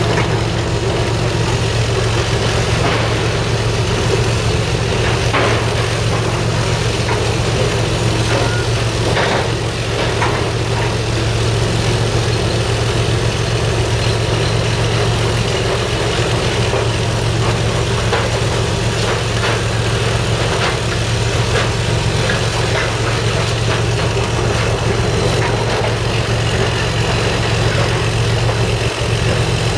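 A large engine idling steadily with a deep, even hum, and a few faint knocks about five and ten seconds in.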